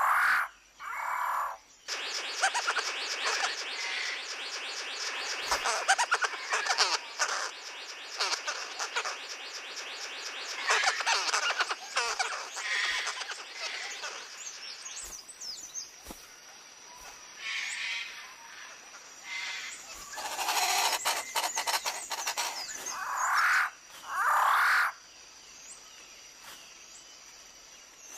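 Tropical forest chorus of birds calling: a dense, rapid chirping for about the first half, then scattered calls and a few loud repeated calls before it quietens near the end.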